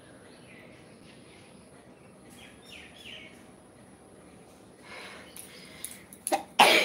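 A person sneezing loudly near the end: a short catch, then one sharp, loud sneeze. Faint bird chirps are heard earlier over quiet outdoor background noise.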